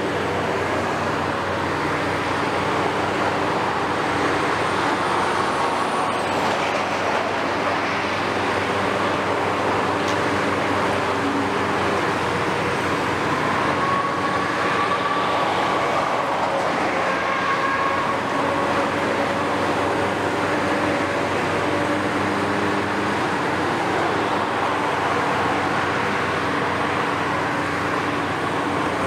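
Hitachi 470 excavator's diesel engine and hydraulics running steadily under load as the machine swings and works its demolition attachment, with a higher whine coming and going midway.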